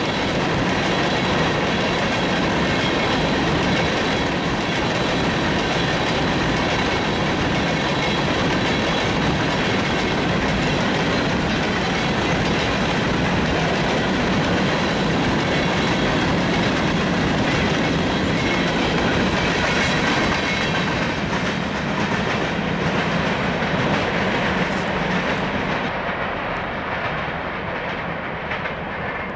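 Freight train of covered hopper cars rolling past on the rails, a steady rumble of wheels on track. It grows quieter over the last few seconds as the cars move away.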